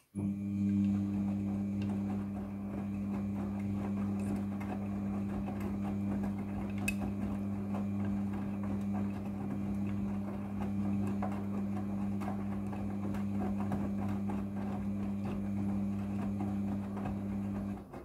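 Midea front-loading washing machine turning its drum in the wash phase: a steady motor hum with wet clothes tumbling in the soapy water. It starts abruptly and stops near the end, winding down as the drum comes to rest.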